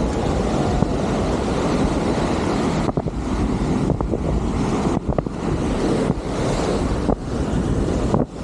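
Wind buffeting the microphone, a dense low rumble with brief dips, over the wash of surf.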